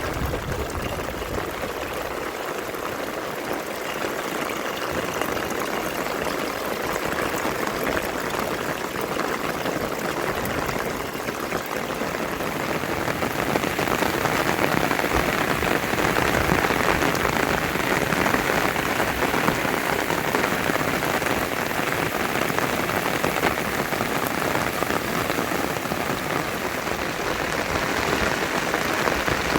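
Rain falling steadily, growing heavier about halfway through.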